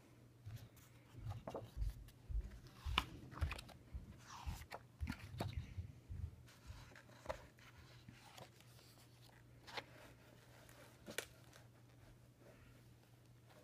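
Pages of a large hardcover book being turned and smoothed by hand: irregular paper rustling and crinkling with soft thumps, busiest over the first half or so, then only a couple of faint ticks. A faint steady low hum sits underneath.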